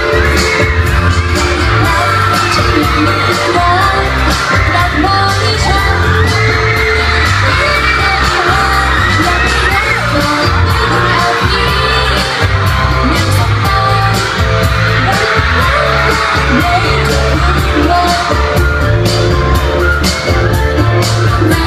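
Thai pop song played loud over a PA with a heavy, steady bass beat, with a woman and a man singing along into handheld microphones.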